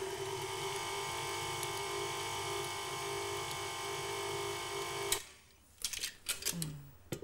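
Electric stand mixer beating chocolate fudge icing, a steady motor whine that cuts off suddenly about five seconds in, followed by a few sharp clicks and knocks.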